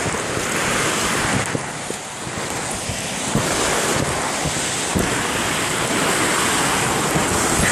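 Rushing water churning around a phone carried down a natural rock water slide, heard right at the phone's microphone, with a couple of knocks partway through.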